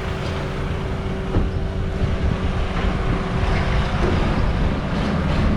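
A steady low rumble with a constant hum from a running motor. The highest hum line stops about four seconds in.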